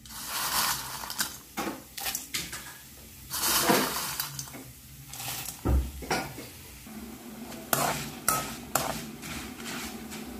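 Broken pieces of dry instant noodles dropped into hot oil in a metal wok, sizzling as they deep-fry. A dull knock comes a little past halfway, and a metal spoon clinks and scrapes against the wok in the second half.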